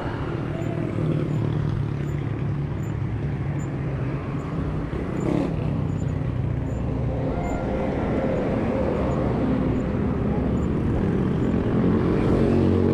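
Road traffic heard from a moving bicycle: motor vehicle engines running steadily, with a louder engine drawing near toward the end.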